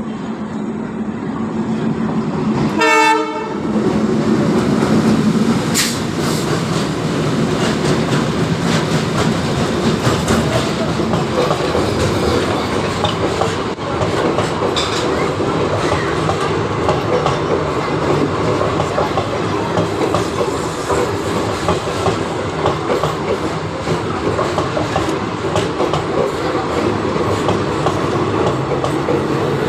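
Ajanta Express train arriving: its locomotive horn sounds one short blast about three seconds in, then the train rolls on with a steady rumble and wheel clatter over the rail joints.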